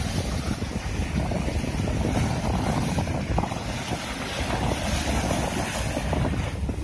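Sea waves washing and splashing over low rocks at the water's edge, with wind buffeting the microphone in a steady low rumble.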